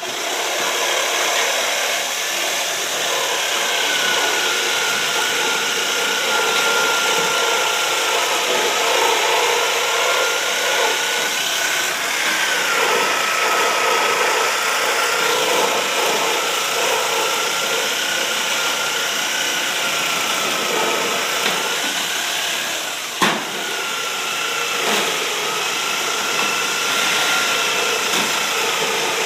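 A motor running steadily, with a faint, slightly wavering whine, and one sharp knock about 23 seconds in.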